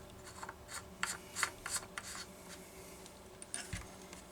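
Faint scattered clicks and rubbing, like hands working over a stopped two-stroke chainsaw; the engine is silent.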